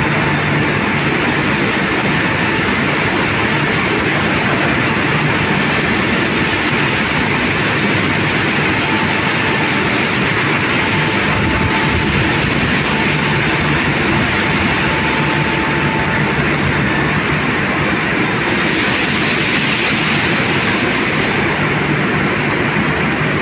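Steady, loud machinery din of a steel mill hall, a continuous even roar with a faint whine coming and going midway. A higher hiss joins for about two seconds near the end.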